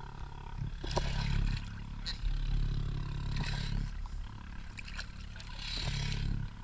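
Underwater breathing through a diving regulator: bursts of exhaled bubbles about every two and a half seconds over a steady low rumble, with a few sharp clicks.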